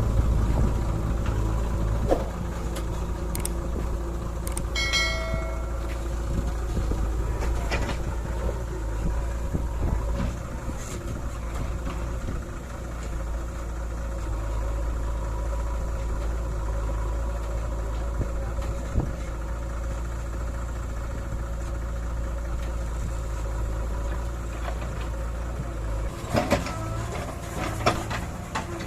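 JCB 3DX backhoe loader's diesel engine running steadily under work, with a brief high-pitched squeal about five seconds in and a few sharp knocks near the end.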